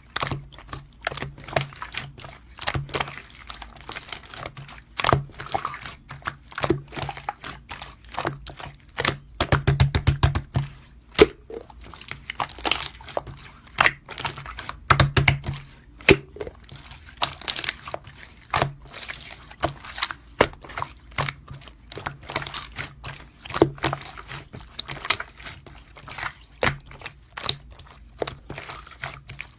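Yellow slime being squeezed and stretched by hand, giving a dense, irregular run of crackling and popping clicks as air pockets in the slime burst.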